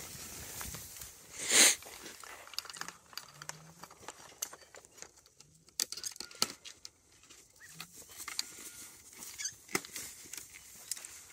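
Hands rustling in grass and handling polyethylene pipe and fittings: scattered light clicks and taps, with one louder brushing rustle about a second and a half in.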